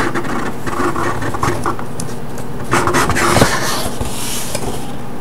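Cardboard box being opened by hand: the lid and flaps scrape and rub, with a louder scrape about three seconds in.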